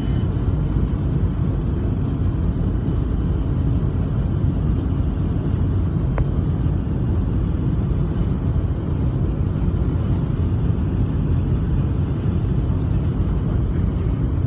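Steady road and wind noise heard inside a car's cabin cruising at high highway speed, a low, even noise of tyres and air.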